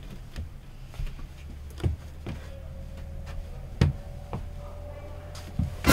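Puzzle boxes and toys being handled on wooden shelves: a handful of soft knocks and clunks spread over several seconds, over a steady low hum.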